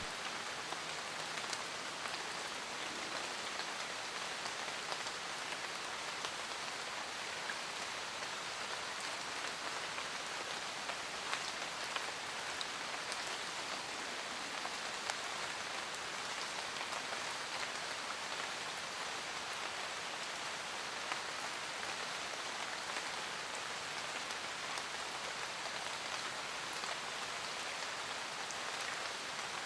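Steady rain falling without letting up, with many separate close drops ticking against a surface.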